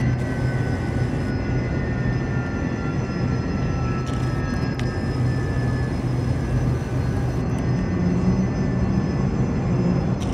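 Boeing 767-300 jet engine running as the airliner taxis in, with only one of its two engines running. It makes a steady, loud rumble topped by a high whine that slowly falls in pitch.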